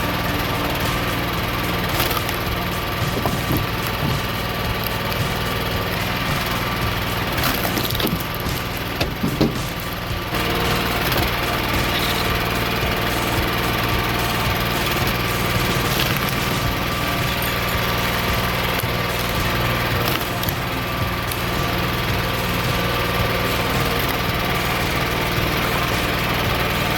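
Engine running steadily to power a hydraulic wood cutter, with a few sharp knocks about eight and nine and a half seconds in.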